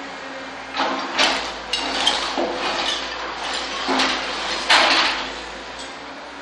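Excavator bucket scraping and crashing into rubble and masonry during interior demolition, over the steady running of the machine's engine. A string of irregular scrapes and knocks comes from about a second in, the loudest near the end, then it settles back to the engine.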